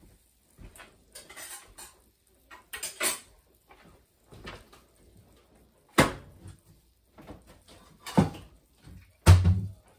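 Someone moving about a kitchen: footsteps and scattered knocks and clacks, with sharp knocks about six and eight seconds in and a heavier thump near the end.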